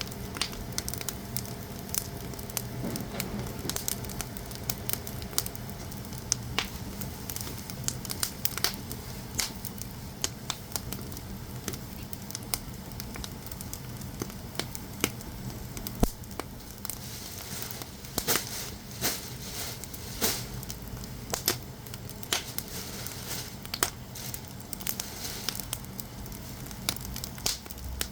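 Firewood burning in a traditional Korean agungi firebox, crackling with irregular sharp pops over a steady hiss; the pops come thicker about two-thirds of the way through.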